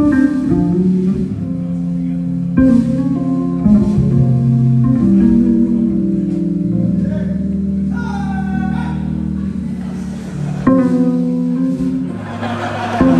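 Electric bass played solo, with held low notes and chords changing every second or two.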